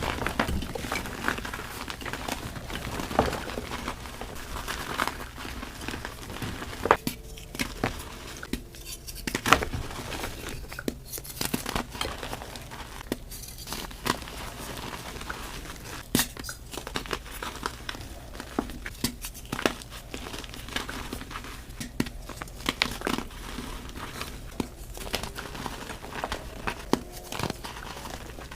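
Soft re-formed gym chalk being crushed and crumbled, giving a run of irregular crisp crackles and crunches.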